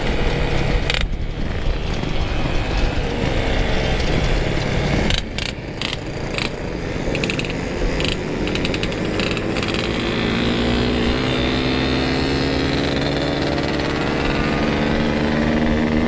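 Yamaha RX-King's 135cc two-stroke engine running under way, over a steady rush of riding noise; in the second half its note climbs steadily as the bike accelerates.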